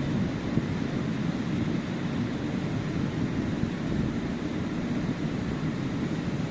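Ocean surf on a sandy beach: a steady low rush of breaking waves with some wind rumble on the microphone.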